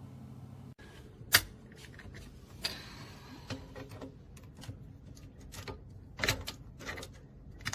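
Handling of a steel electronic keypad safe: a sharp click about a second and a half in, then scattered lighter clicks and knocks.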